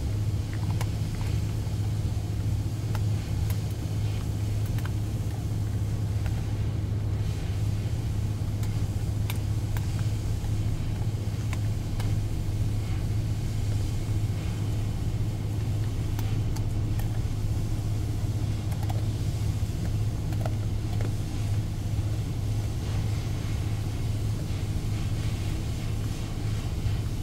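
Steady low drone of a ship's engine running, even throughout, with faint scattered clicks of a dog chewing meat.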